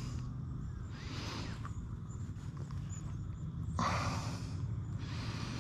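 Three short, heavy breaths, snorted out through a person's nose close to the microphone, about a second in, near four seconds and near the end, over a low steady hum.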